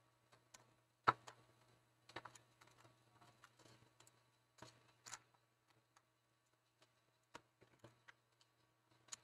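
Irregular small clicks and knocks of a laptop's plastic casing and parts being handled and worked with a screwdriver during disassembly, the sharpest about a second in and near the end, over a faint low hum.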